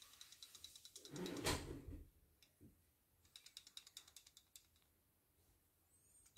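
Worn rotary hook of an embroidery machine shaken and turned by hand, giving faint rapid clicking and rattling in two spells, with a brief rub of handling about a second in. The rattle is the play of a loose, worn hook, which is prone to skipping stitches.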